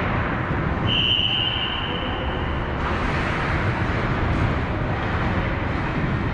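A referee's whistle blown once, a single steady shrill tone lasting about two seconds, starting about a second in, over a steady din of ice-rink noise.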